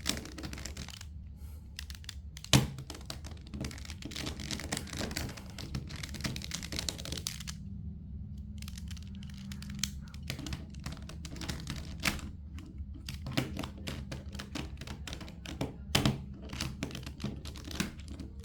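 Plastic twisty puzzle cube being turned one-handed: a rapid, irregular run of clicks as its layers turn and snap into place. A louder knock comes about two and a half seconds in and another near the end.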